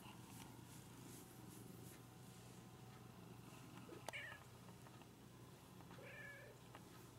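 A cat giving two short, faint mews, the first about four seconds in and the second about six seconds in.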